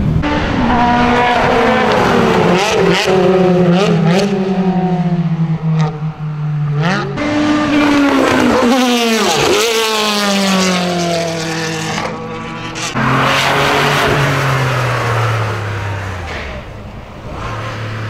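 Racing car engines at high revs on a circuit, the pitch climbing and dropping through gear changes. About nine to ten seconds in a car goes past at speed, its pitch falling sharply as it passes.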